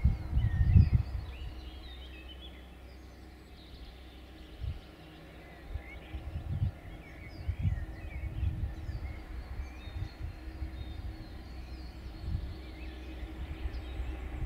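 Birds chirping and singing on and off over a faint steady low hum, with irregular low rumbling thumps of wind on the microphone.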